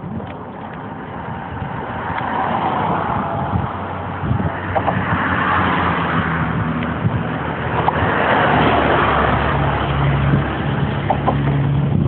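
Road traffic passing close by: cars going past one after another, their tyre and engine noise swelling about three times, with a low engine hum building near the end.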